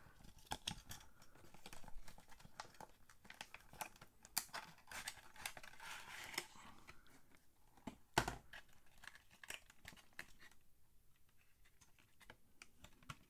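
Cardboard toy box being opened and its packaging tray slid out: faint rustling and crinkling of cardboard, with scattered light clicks and one sharper knock about eight seconds in.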